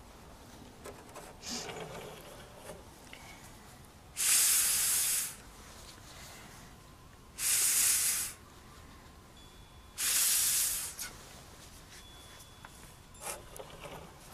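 Three short hissing bursts of air, each about a second long and a few seconds apart.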